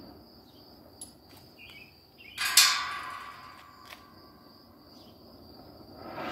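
Oxy-acetylene cutting torch hissing on steel. A sudden loud blast of hiss comes about two and a half seconds in as the cutting oxygen comes on and sparks fly, then fades back to a steady low hiss. A second short surge comes near the end.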